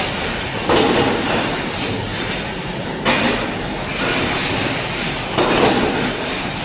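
Toyu mechanical forging press stamping hot billets into ball valve bodies in a steady automatic cycle. There are three strokes about two and a half seconds apart, each a sudden bang followed by about a second of hissing, rattling noise over a constant machine din.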